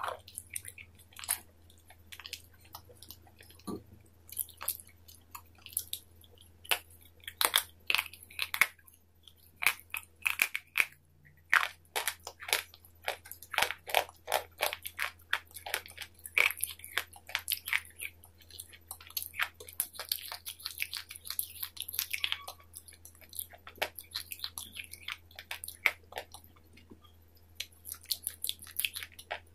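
Crisp, crunchy biting and chewing close to the microphone: many sharp crackles at irregular intervals, some much louder than others.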